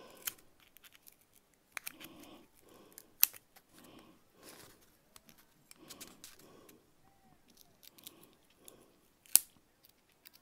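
Straight-bladed craft knife scraping a shallow groove out of a strip of Styrodur foam, in short scratchy strokes. A few sharp clicks come through, the loudest about 3 s in and again near the end.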